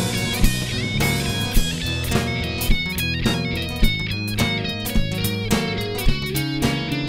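Live band playing an instrumental passage: electric guitar, bass guitar and drum kit with an acoustic guitar, over a steady beat accented a little under twice a second.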